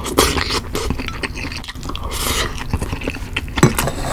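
Close-miked eating sounds of a mouthful of rice: wet chewing and smacking made up of many short clicks, with two brief hissing sucks. A sharper click comes near the end.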